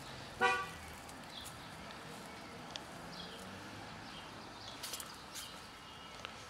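A cat gives one short meow about half a second in. After it come light rustles of grass and a few faint high bird chirps.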